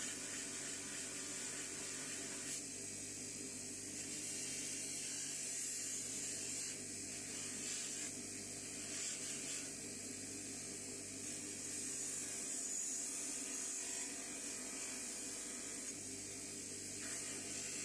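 A small power tool running steadily, a constant whir with a high hiss, as a rusty spanner is cleaned.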